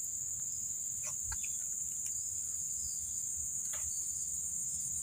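A steady, high-pitched insect chorus, with a few faint short sounds about a second in and again near the end.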